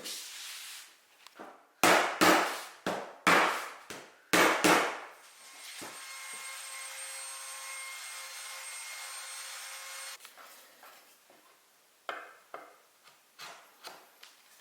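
Hand work on wood: about six sharp strokes on wood in quick succession, then a steady hiss with a faint whine for about four seconds, then a few light knocks.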